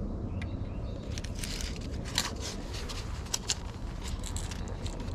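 Marine putty being mixed: a run of short, irregular scraping and crackling strokes of the mixing tool through the putty, starting about a second in, over a steady low rumble.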